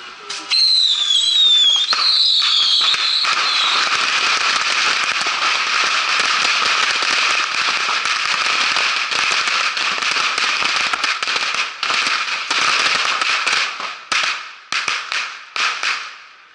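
Dense barrage of small rocket fireworks: whistling rockets in the first few seconds, then an unbroken crackle of many rockets firing and bursting together for about ten seconds, thinning into separate bursts near the end and stopping.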